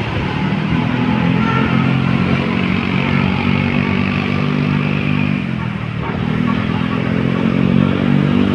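A motor vehicle's engine running steadily at road speed; its note drops and weakens about five and a half seconds in, then picks back up.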